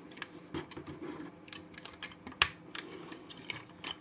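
Hard plastic parts of a G-Creations Shuraking SRK-01 Thundertronus transforming robot figure clicking and rattling as they are handled and pressed together, with one sharper snap about two and a half seconds in.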